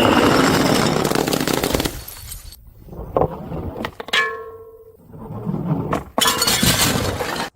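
Glass bottles smashing and shattering: a long crash of breaking glass at the start, a bottle clinking and ringing about four seconds in, then another crash near the end that cuts off abruptly.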